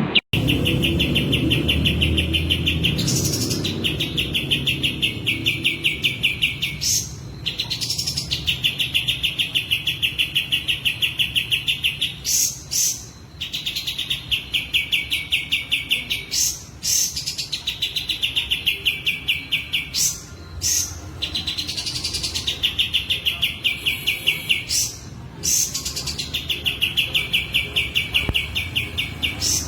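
Kapas tembak bulbul singing persistently, in breeding condition: repeated phrases of rapid trilled notes, each a couple of seconds long and opening with an upward sweep, separated by short pauses.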